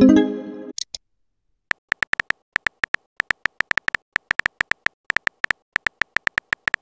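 Texting-app sound effects: a short electronic message alert tone at the start, then a run of rapid keyboard-tap clicks, about four or five a second, as a message is typed out.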